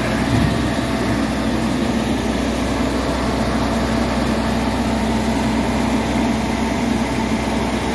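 Diesel engine of a Western Star hi-rail grapple truck running steadily close by, a low, even hum with no knocks or changes.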